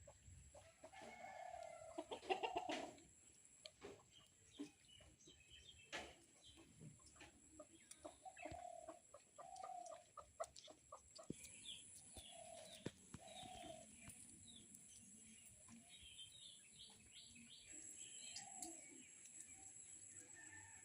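Chickens clucking now and then in short separate calls, the loudest about two seconds in, over a faint steady high-pitched hum.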